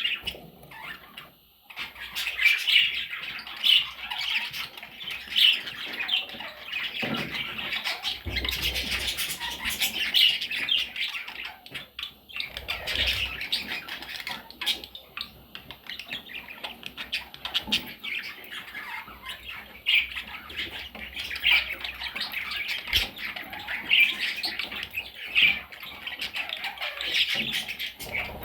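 Baby budgerigars squawking and chirping, many short calls overlapping almost without a break.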